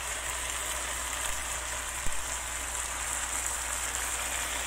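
Eggplant frying in a wok, sizzling steadily, with one sharp knock about two seconds in.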